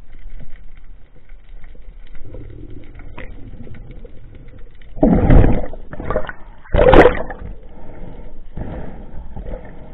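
Water noise picked up by an underwater camera during a diver's ascent: a faint crackle and low rushing at first, then four loud bubbling gurgles of air and water in the second half as the surface is reached.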